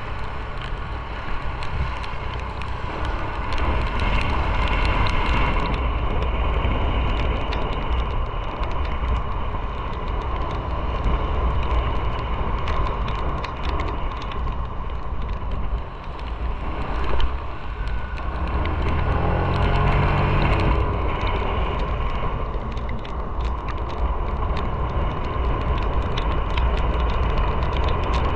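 Motorcycle riding on wet pavement, with a steady engine rumble under wind and road noise. About nineteen seconds in, the engine note rises as the bike accelerates, then settles back.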